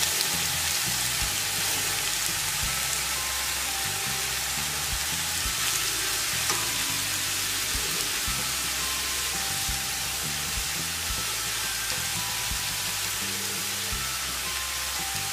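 Grated carrots sizzling in hot ghee in a steel kadhai: a steady frying hiss as the carrots are turned with a spatula. Faint background music underneath.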